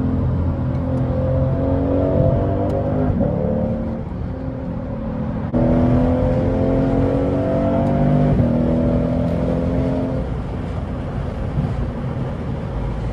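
Lexus RC F's 5.0-litre V8 accelerating hard through the gears, heard from inside the cabin. Its pitch climbs, drops back at the upshifts about three and eight seconds in, then climbs again. It gets suddenly louder about five and a half seconds in.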